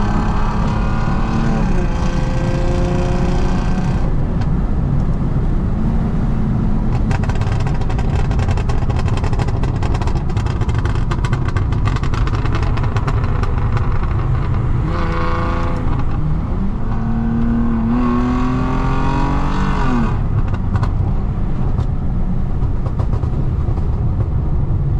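Lexus IS250's V6 engine and exhaust on the move, its pitch rising and falling several times with the revs, and a long run of rapid exhaust pops and crackles through the middle. The crackle comes from an ECU tune set for pops and bangs when the car is held at mid revs off the throttle.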